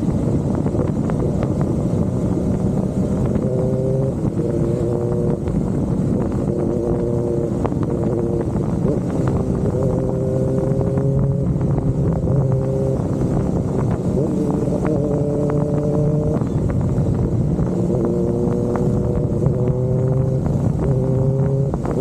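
Kawasaki ZX-4RR's 399 cc inline-four engine running under way, its pitch climbing and dropping back several times as the throttle is worked, over steady wind and road noise.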